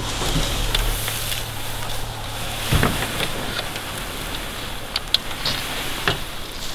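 Plastic kayak being dragged over tall dry grass, with rustling, crackling stems and scattered snaps and footfalls as it is pulled along.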